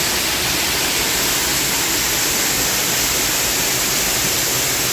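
Heavy rain pouring down steadily in a severe storm, a constant even hiss.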